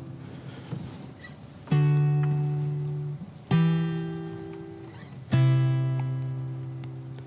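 Background music: three strummed guitar chords, each struck about two seconds apart and left to ring and fade.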